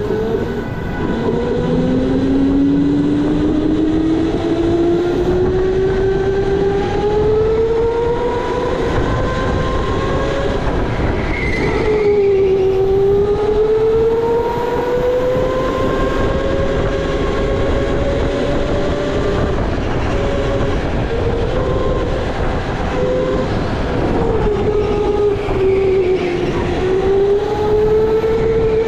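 Electric go-kart motor whining under way, its pitch climbing slowly as the kart gathers speed, dropping about twelve seconds in and again near the end as it slows for corners, over rumbling tyre and chassis noise.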